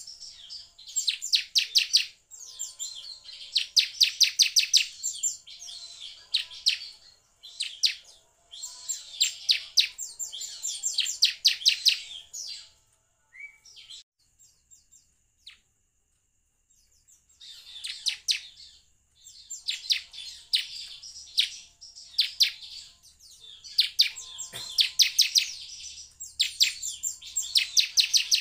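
Bar-winged prinia (ciblek) singing: bursts of rapid, high, chattering trills, each run lasting a second or two. There is a pause of a few seconds in the middle before the trills resume.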